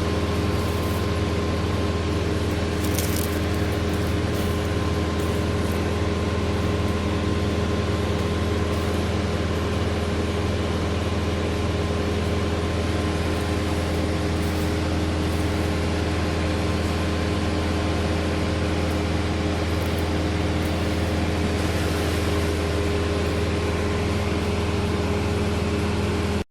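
A large engine running at a steady speed: a constant low hum with several steady tones above it, unchanging throughout.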